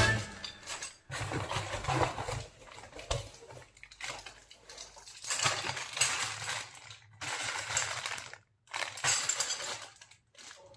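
Light metallic clinking and rattling from a folding bicycle's parts being handled and fitted during assembly, coming in irregular bursts.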